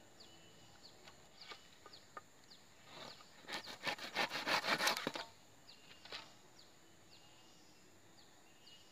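A handsaw working quickly on wood for about a second and a half, a fast run of rasping strokes about three and a half seconds in, with a few light knocks of tool on wood around it. Birds chirp repeatedly in the background over a steady high insect drone.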